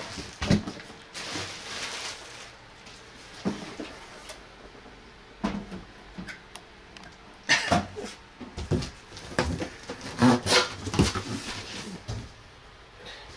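Heavy amplifier chassis being lifted and set down on one another: irregular knocks and thumps with rustling of cardboard packaging, coming thickest in the second half.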